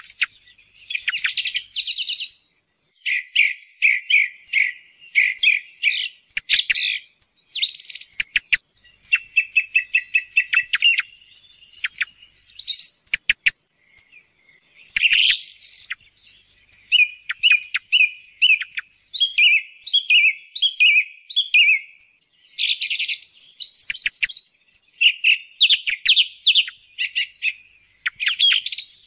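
Song thrush singing: short phrases of high, quickly repeated notes, one after another, with brief pauses between them.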